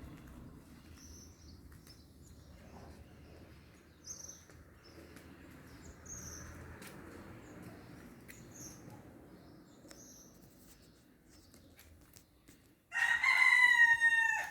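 A rooster crows once near the end, one long call of about a second and a half. Faint, short high bird chirps come every second or two before it.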